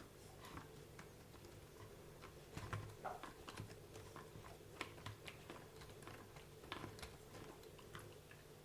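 Faint, irregular clicking and ticking from the drivetrain of a WLtoys 144001 RC car as one wheel is turned by hand while the opposite wheel is held, the freshly greased differential gears meshing. A faint steady hum runs underneath.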